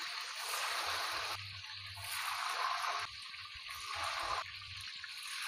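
Blocks of tofu deep-frying in hot oil in a wok, a steady sizzling hiss that abruptly drops and rises in level a few times.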